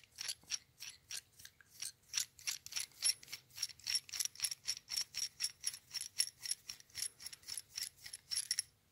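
Steel hex nut being spun by hand along a 3/8-inch threaded rod, the threads giving a quick, even run of small metallic clicks, about four to five a second, that stops just before the end.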